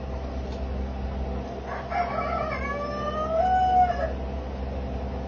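A rooster crows once, a call of about two seconds starting about two seconds in and ending on a long held note, over a steady low hum.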